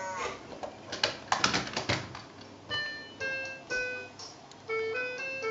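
Hard plastic clicking and rattling as a cow figure moves through a VTech Go! Go! Smart Animals farm playset, then the playset's electronic tune plays in simple beeping notes, triggered by the figure on its sensors.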